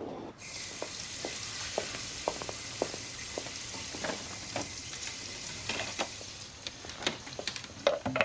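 A steady high hiss that starts suddenly just after the start, with many scattered light clicks and taps over it.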